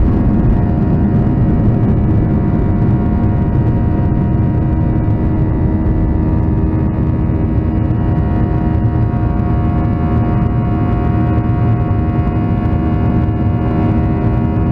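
Boeing 737-900ER's CFM56-7B turbofan engines and the airflow over the fuselage, heard inside the cabin as a steady drone with a few steady tones held above a deep rumble.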